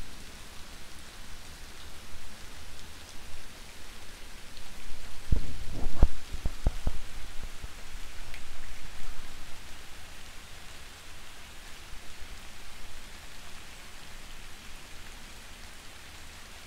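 Soft, steady rain falling, an even hiss. A few low thumps about a third of the way in.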